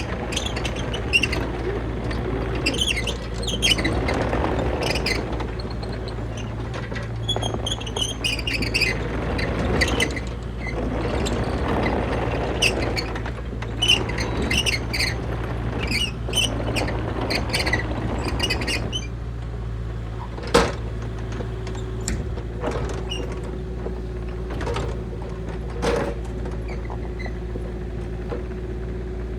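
Kubota KX040-4 mini excavator's diesel engine running steadily while the hydraulics work the arm and attachments, with repeated squeaks and squeals from the moving parts. Later there is a steadier hydraulic whine with a few sharp knocks, the loudest about two-thirds of the way through.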